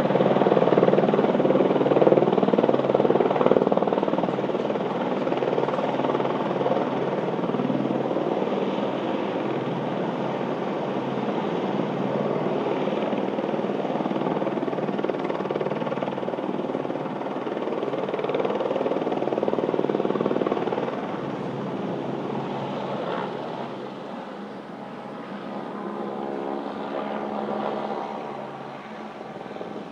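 Helicopter flying overhead, a steady rotor and engine noise that is loudest in the first few seconds, slowly fades, and swells again briefly near the end.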